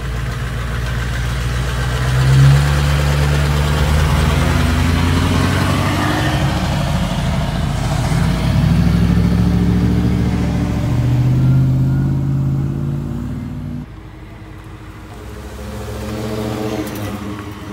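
Ford pickup trucks driving past one after another, their engines revving as they pull away, with two rises in pitch early and midway. Near the end a quieter truck rolls by.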